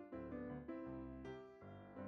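Background piano music, a melody of notes struck one after another.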